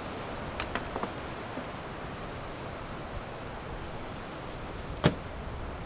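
Steady surf and wind off the sea. A few small clicks come early, and about five seconds in there is a single sharp knock, most likely the scooter's seat being shut.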